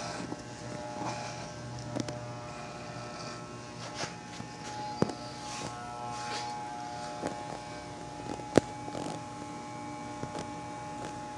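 Electric hair clippers buzzing steadily as they shave a head down close to the scalp, with a few sharp clicks along the way.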